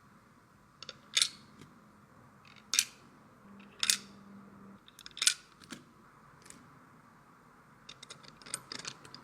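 Sharp plastic and metal clicks and snaps from PC parts and packaging being handled during a build: four loud clicks about a second and a half apart, then a quick cluster of lighter clicks near the end.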